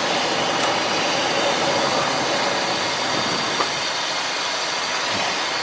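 Steady rush of jet engine and airflow noise in the cockpit of a Cessna Citation business jet at takeoff power, lifting off and climbing out.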